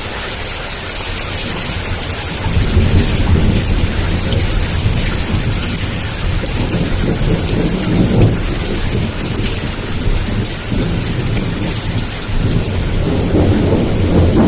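Heavy downpour of rain hissing steadily, with thunder rumbling low beneath it. The rumble swells about two seconds in, again around the middle and near the end.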